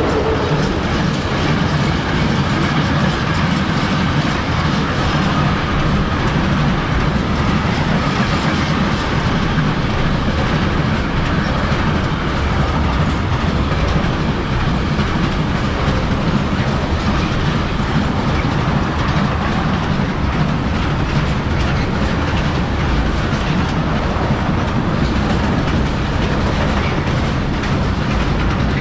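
A train running past on the track: a steady, loud rolling noise of wheels on rails that goes on without a break.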